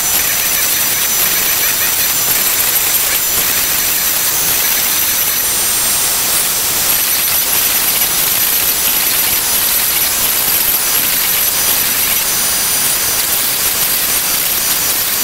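Palm-router spindle on a Shapeoko XXL CNC machine running at full speed with a steady high whine over a loud rush of air, its bit cutting pockets in Baltic birch plywood.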